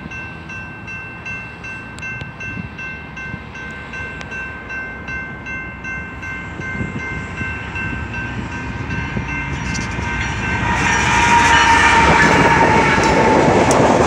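Railroad grade-crossing warning bell ringing in a steady repeating rhythm as a BNSF diesel-hauled grain train approaches. About ten seconds in, the train's noise swells quickly into a loud roar of engine and wheels as the lead locomotives reach the crossing.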